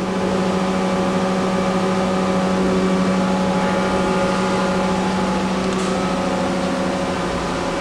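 Mazak Nexus 510 II 5X vertical machining center running, a steady machine hum with several fixed tones, the lowest the strongest, as its axes and trunnion rotary table are worked.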